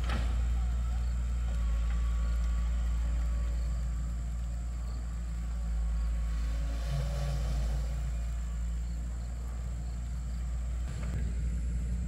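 Engine running steadily at an even speed: a deep, constant hum with no revving.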